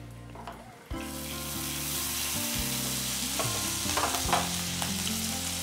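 Chilli flakes and ginger-garlic paste frying in hot sesame oil in a nonstick pan: a sizzle starts suddenly about a second in and carries on steadily, with a few clicks from stirring near the middle.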